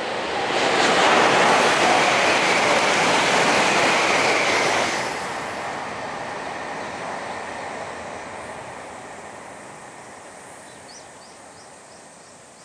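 E4 series 'Max' double-deck Shinkansen passing at speed: a loud rush of wheels and air that builds within the first second, holds for about four seconds, then drops off sharply as the end of the train goes by and fades away. Faint repeated chirps come in near the end.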